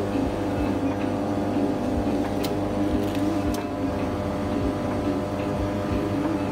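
Steady machine hum with a few faint clicks about two and a half and three and a half seconds in.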